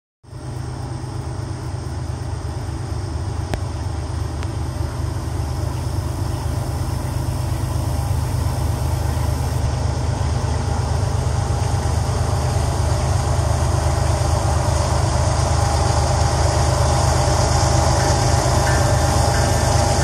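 Three Union Pacific diesel-electric locomotives approaching at the head of a freight train: a steady low engine rumble that grows gradually louder as they near.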